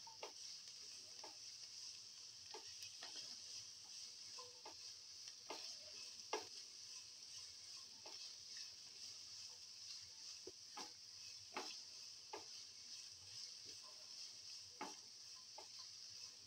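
Sliced onion and garlic sizzling faintly in oil in a frying pan, with a spatula scraping and tapping against the pan every second or so as they are stirred.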